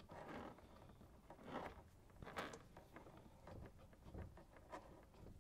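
Very quiet, scattered small clicks and rustles of a braided stainless steel supply line's nut being threaded by hand onto a brass cold-water shut-off valve.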